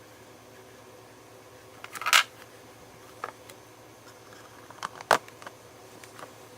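A handful of short, sharp clicks and taps of hard plastic toy pieces being handled, the loudest about two seconds in and another about five seconds in.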